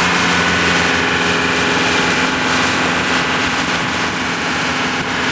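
A small boat's motor running steadily while under way, with a steady rushing noise over it.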